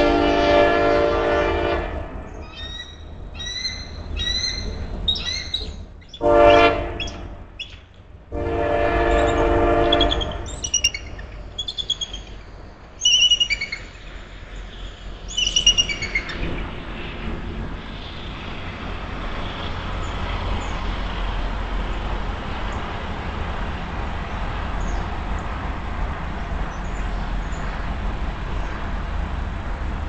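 Train horn sounding three blasts, the middle one short, with a pair of bald eagles calling between and after them in series of high, falling, piping chirps. After about 16 s the calls stop and only a steady low rumble remains.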